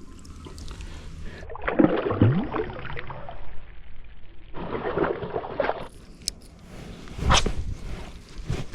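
Water sloshing and splashing in two bouts, with a sharper splash or knock near the end.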